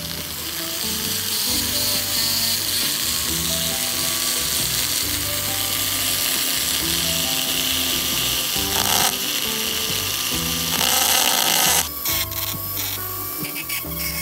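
Rotary tool with a cylindrical grinding bit running against a painted die-cast car body, a steady high hiss that stops suddenly about twelve seconds in, followed by a few short scratchy strokes. Background music plays throughout.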